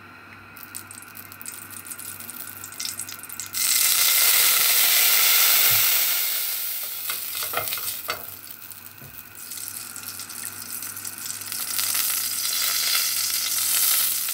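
Cooking oil sizzling and crackling as it heats in a stainless steel pot, jumping louder about three and a half seconds in, easing off in the middle and building again near the end, with a few light knocks of a wooden spoon against the pot.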